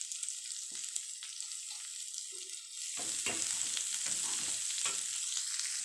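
Sliced onions, green chillies and diced carrots sizzling in oil in a metal kadai. About halfway through a metal spatula starts stirring them, scraping the pan in repeated strokes, and the frying gets louder.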